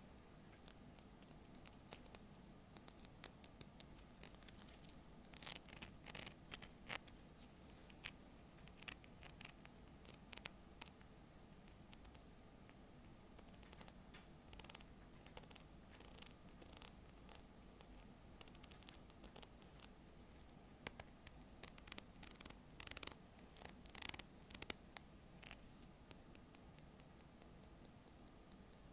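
Fingers tapping on a white scallop seashell held in the hand: quick, light, irregular clicks, most frequent and loudest about three-quarters of the way through.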